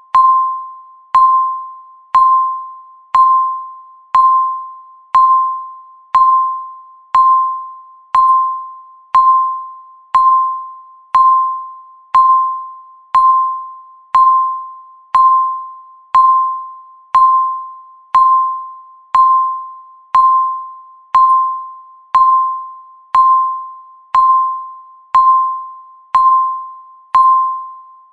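Countdown timer's electronic beep sounding once a second to mark each passing second: a short, clear, pitched tone with a sharp start that fades quickly before the next one.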